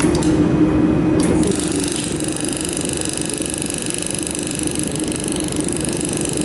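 Laser welding machine and its fans running: a steady mechanical hum, with a few sharp clicks near the start and at about a second in, after which a set of steady high whining tones comes in.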